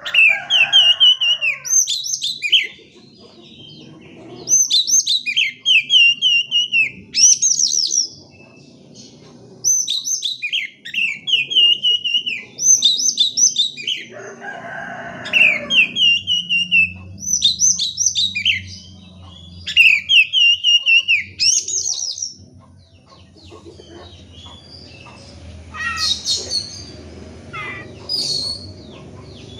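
Oriental magpie-robin (kacer) singing in rapid repeated phrases of sharp high chirps and curved whistled notes, with a harsh rasping burst near the start and another about halfway through. The song thins to scattered notes in the last several seconds.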